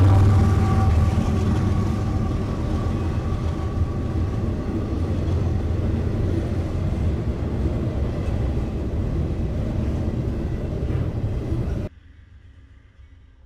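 A CSX freight train passing close by. A mid-train diesel locomotive drones past at the start, then the train settles into a steady rumble and clatter of freight cars on the rails, which cuts off abruptly near the end.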